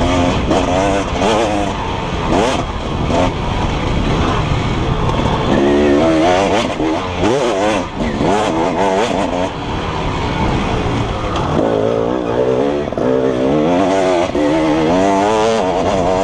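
KTM 300 EXC two-stroke enduro bike engine revving hard, its pitch climbing and dropping again and again as the rider opens and closes the throttle.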